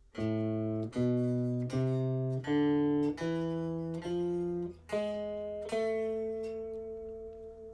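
Guitar playing the A harmonic minor scale one note at a time, eight notes stepping up from the open A string to the A an octave above, the last note left to ring.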